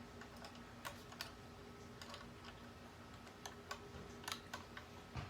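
Faint, irregular light clicks and taps of small metal parts as a Mosin Nagant rifle is put back together and a screw is driven in, over a faint steady hum.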